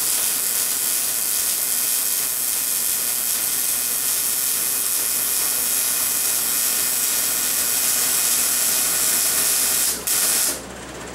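Wire-feed (MIG) welder arc crackling and hissing steadily as a bead is run along a steel angle-iron seam. Near the end the arc breaks off for an instant, restarts briefly, then stops.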